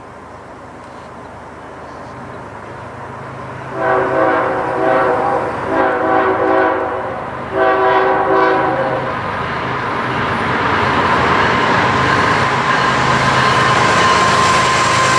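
An approaching train's locomotive air horn sounds three blasts of about a second and a half each, several chimes together. The train's rumble then grows steadily louder as it nears, with a steady high tone over it near the end.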